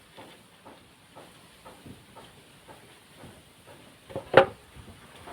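Woodworking hand work: soft rasping strokes about two a second, then one louder knock about four seconds in.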